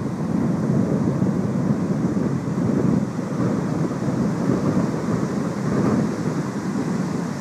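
Strong gusty wind buffeting the microphone: a steady low rumble that swells and eases with the gusts.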